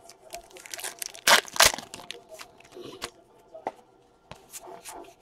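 Trading cards being handled by hand: card stock sliding and rubbing, with small clicks and two louder swishes about a second and a half in.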